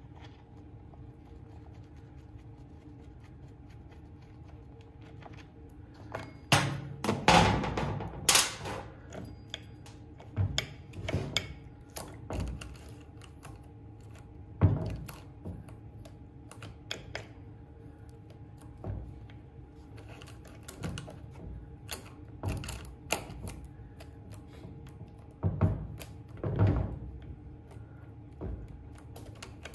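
Clicks, knocks and rattles of metal chainsaw parts being handled on a metal workbench as the clutch cover and bar nuts come off and the saw chain is worked off the bar. The busiest clatter comes about seven to nine seconds in, with scattered knocks after.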